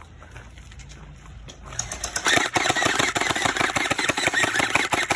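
Electric gel blaster firing on full auto: a fast mechanical rattle of more than ten shots a second. It starts nearly two seconds in, runs for about four seconds and cuts off suddenly.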